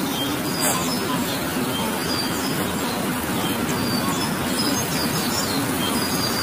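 Steady outdoor city background of traffic rumble, with small birds chirping now and then. There is a brief click just under a second in.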